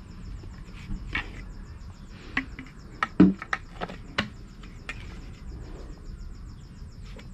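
Scattered clicks, scrapes and knocks of hands handling an empty plastic IK Foam Pro 2 sprayer bottle while pushing a metal valve stem out through a hole drilled in its side. The loudest knock comes about three seconds in.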